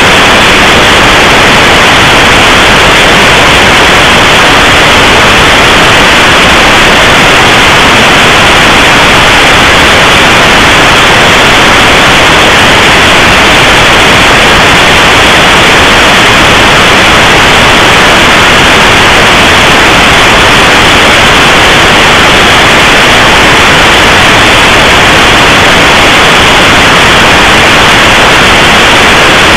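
Loud, steady static hiss from a shortwave web SDR receiver in FM mode as it is tuned across the bands, with no station coming through.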